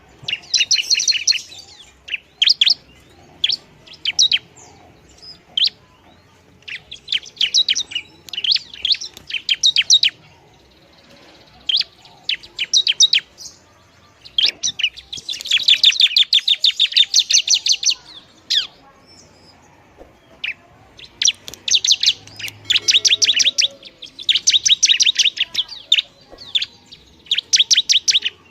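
Bar-winged prinia (ciblek) singing loud, rapid chattering trills in bouts of one to a few seconds, separated by short pauses.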